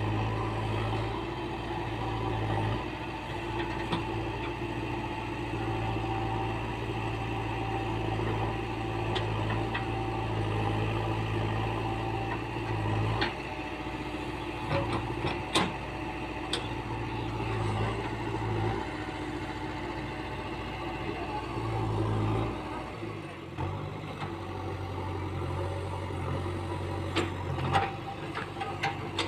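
JCB 3DX backhoe loader's diesel engine running steadily while the backhoe digs and loads soil. Its low note shifts level every few seconds as the arm works, and there are a few short sharp knocks.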